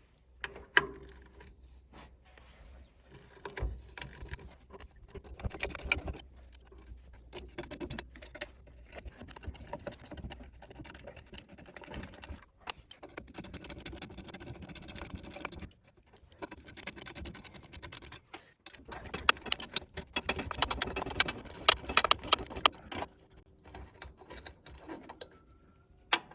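Hand tools on metal: irregular clicking, clinking and light knocks of a wrench or ratchet as bolts and a nut are loosened on the forklift's steering gear. The clicking comes in busier stretches about halfway through and again about three quarters of the way through.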